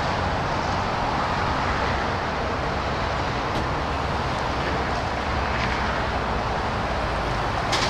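Wind buffeting the microphone over a steady low rumble of distant engines, with one short sharp knock near the end.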